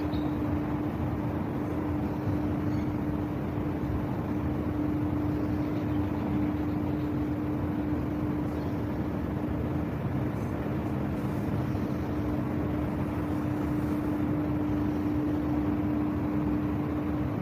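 Steady rumble of city traffic and harbour machinery with a constant low hum.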